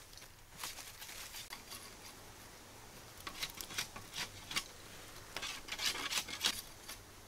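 Wooden sticks being handled and worked by hand, giving short scrapes and rustles: a cluster about three seconds in and a louder cluster near the end.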